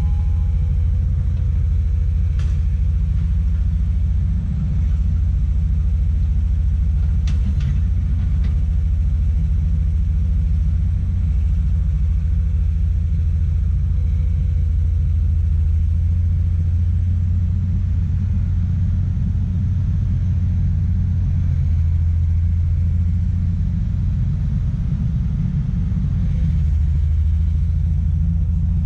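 Heavy diesel engine of a Komatsu PC200 excavator running steadily with a deep low rumble, with a few short clicks or knocks about 2 seconds in and again around 7 to 8 seconds.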